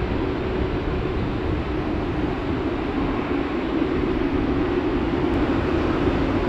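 Airbus A380-841's four Rolls-Royce Trent 970 turbofans running at taxi power as the airliner rolls slowly onto the runway before take-off: a steady jet rumble with a droning hum.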